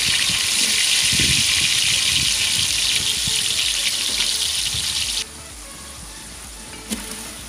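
Split moong dal sizzling loudly as it hits hot fat in a large aluminium pot, a steady hiss that cuts off abruptly about five seconds in. A fainter sizzle continues after that, with one short click near the end.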